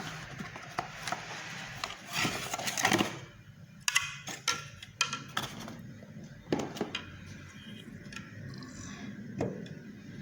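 Scattered knocks and clatter, busiest a couple of seconds in and again around the middle, over a steady low hum; no horn is sounding.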